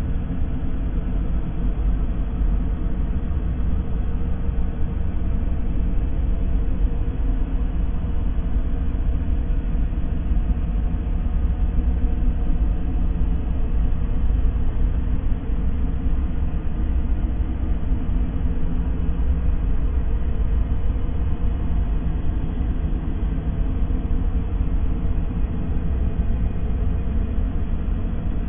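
Steady, unchanging noise heavy in the deep bass, a low rumble of the kind played as background noise for sleep or focus.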